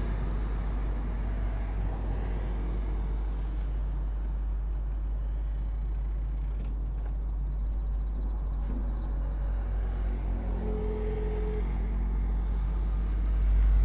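Motorcycle engine idling steadily with a low, even hum.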